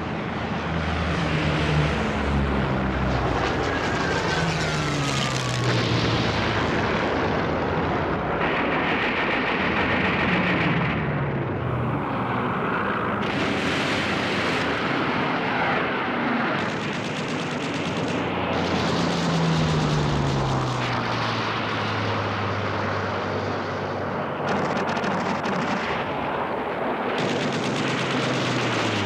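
Propeller warplane engines drone through a dense din of gunfire, with several passes whose engine pitch falls over a couple of seconds as the planes dive or fly past.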